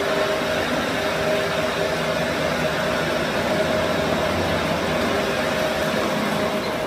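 A machine running steadily, an even noise with a constant hum, without change.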